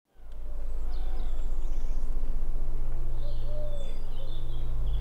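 Birds chirping faintly over a low, steady rumble that fades in at the start.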